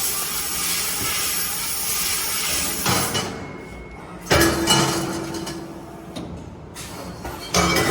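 Fiber laser tube-cutting machine: a steady loud hiss of cutting for about three seconds, then quieter, with two sudden loud mechanical bursts carrying a low hum, about four and seven and a half seconds in.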